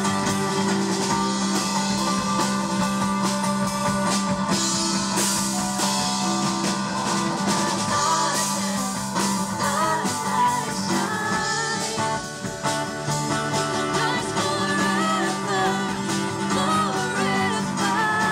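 Rock music with guitar, and a singing voice comes in partway through.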